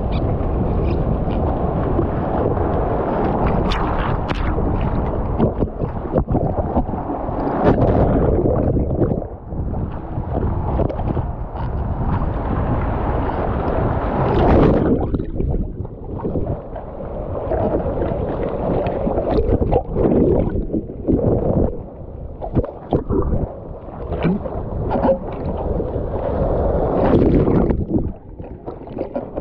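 Shallow ocean surf churning and sloshing around a camera held at the waterline. Several times the sound turns dull and muffled for a moment as water washes over the microphone.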